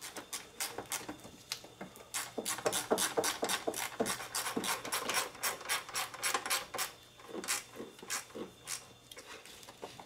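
Rubber turbo hose on a Volvo being worked back into place in the engine bay: irregular rubbing, scraping and clicking as it is pushed and twisted against the surrounding parts.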